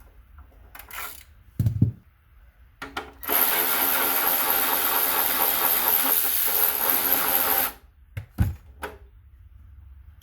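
Electric drill running steadily for about four and a half seconds, spinning an 8mm bolt out of the motorcycle's front end. A low knock comes shortly before it and another just after.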